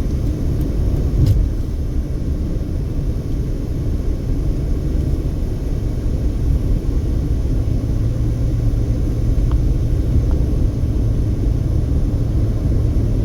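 A car driving at road speed, heard from inside the cabin: a steady low rumble of tyre and road noise, with a low hum coming up a little about eight seconds in.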